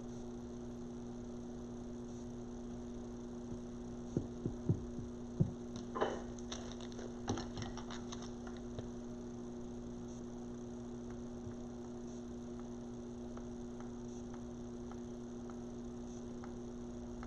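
Stand-alone ice maker running with a steady hum, with a few light knocks and clicks between about four and nine seconds in.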